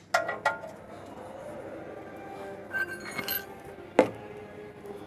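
Metal tools and parts clinking and tapping against each other: a few sharp clinks near the start, a cluster about three seconds in, and the loudest strike about four seconds in.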